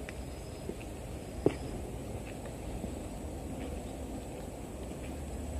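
Footsteps on a paved path, light ticks at a slow walking pace with one sharper click about one and a half seconds in, over steady outdoor background noise.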